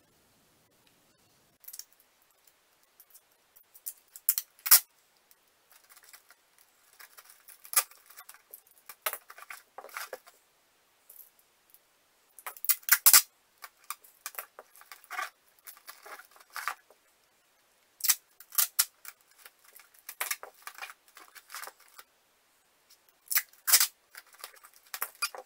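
Brown packing tape pulled off the roll in short crackling rips at irregular intervals, torn off and pressed onto a cardboard box, with the cardboard rustling as it is handled.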